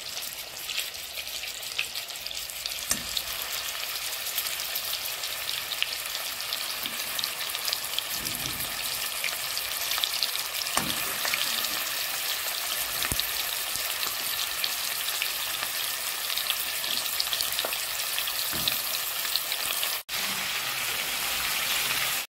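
Chunks of raw meat sizzling in hot fat in a pot, a steady crackling hiss. A few soft thuds come as more pieces go in. The sound cuts out for a moment about twenty seconds in.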